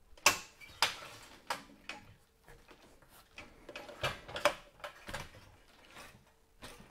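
A series of sharp, irregularly spaced knocks: a small hammer tapping on a hardwood beam to work free a piece that is coming loose.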